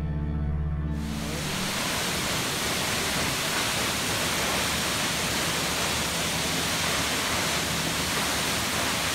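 A waterfall's water rushing down onto rock: a steady, dense rush that comes in about a second in as the music ends.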